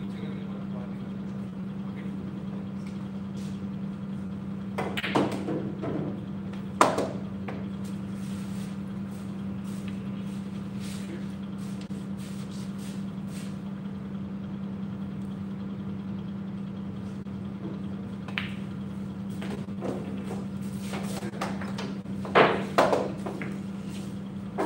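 Pool balls clacking on the table: a handful of sharp clicks of cue tip and ball striking ball, a couple near five and seven seconds in and a pair near the end, over a steady low hum.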